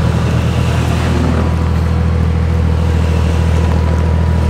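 Off-road vehicle engine running steadily at low revs while crawling over a rocky trail: an even, unchanging low drone.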